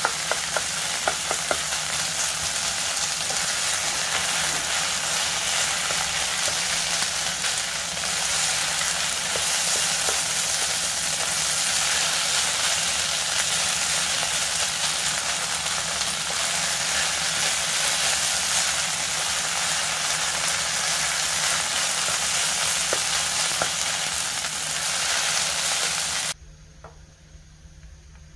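Kimchi fried rice with pork belly sizzling in a hot pan while a spatula stirs and turns it, with occasional clicks of the spatula against the pan. The sizzle cuts off suddenly near the end.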